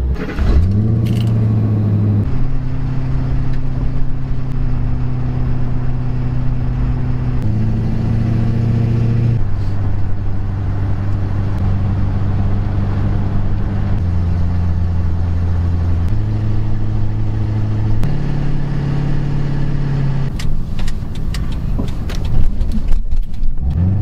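Pickup truck engine and road noise heard from inside the cab while driving. The engine revs up about half a second in, then holds a steady note that jumps up or down every few seconds; near the end come scattered knocks and rattles.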